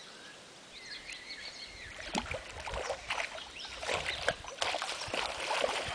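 A hooked yellow belly (golden perch) splashing and thrashing at the water surface as it is played and reeled in to the bank, with scattered splashes and knocks from about two seconds in.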